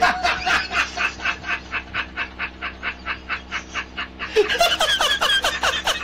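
A man laughing hard and uncontrollably in rapid, even bursts, about four to five a second, breaking into a higher, shriller laugh about four seconds in.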